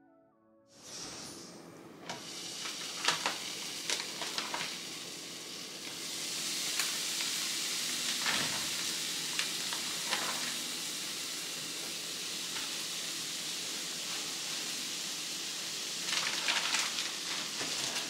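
Bacon strips sizzling in a hot frying pan. The sizzle starts about a second in and grows louder as more strips are laid in, with a few light clicks and, near the end, quicker crackling spatters.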